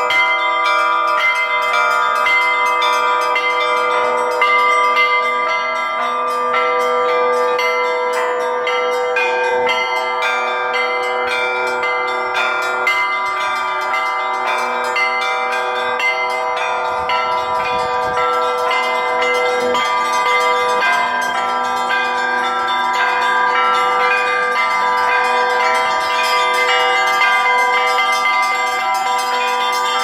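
A set of ornamented cast bells hung from a wooden beam, rung in the Russian Orthodox manner by one ringer pulling ropes tied to the clappers. It is a continuous, fast peal of many overlapping strikes at several pitches, the bells ringing on into one another.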